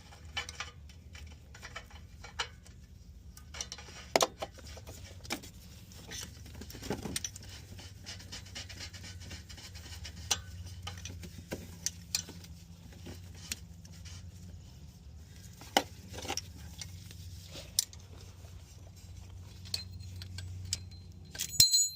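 Scattered light metallic clinks and taps of hand tools and parts as a new oxygen sensor is threaded into the exhaust by hand, with a louder ringing clink near the end. A steady low hum runs underneath.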